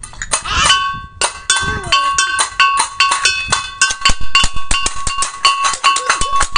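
Balinese gamelan metal percussion struck fast, several ringing metallic strikes a second over a steady pitch, as played for a barong bangkung procession. A child's voice is heard briefly near the start.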